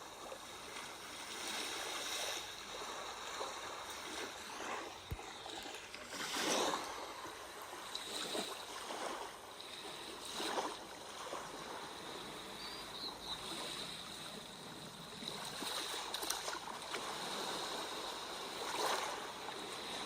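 Sea waves washing in, a steady rush of surf that swells now and then every few seconds.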